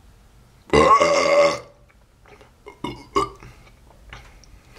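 A man's loud belch lasting about a second, after gulping down milk and carbonated Red Bull, followed by a few faint short sounds.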